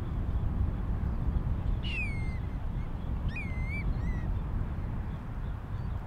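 Three short bird calls over a steady low rumble. The first, about two seconds in, slides down in pitch; the second rises and then levels off; the third is a brief, fainter note just after.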